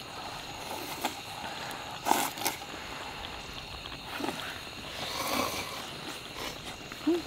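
A person slurping ramyeon noodles and broth from a metal bowl: two slurps about three seconds apart over a steady faint hiss.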